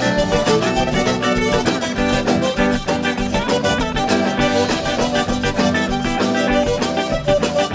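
Background music with a steady beat, several instruments playing together.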